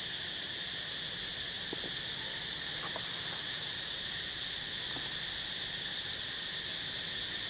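Steady, high-pitched drone of an insect chorus, unchanging throughout, with a few faint brief sounds about two, three and five seconds in.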